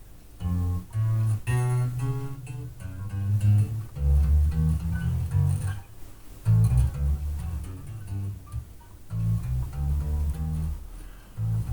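Electric bass guitar played through a bass amp cabinet: a run of plucked low notes in a practice riff or finger exercise, with a few short breaks. It is picked up from across the room, so reflected room sound is mixed in.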